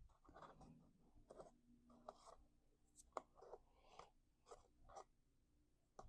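Faint rustling and light tapping of cardstock being handled and pressed together, a string of small soft clicks and rustles.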